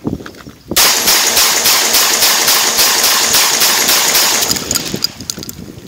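UTAS XTR-12 semi-automatic 12-gauge shotgun fired in rapid succession, several shots a second for about four seconds, starting about a second in, as the 14-round magazine is emptied.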